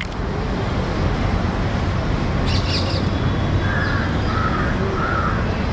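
A crow cawing three times in the second half, over a steady outdoor background rumble.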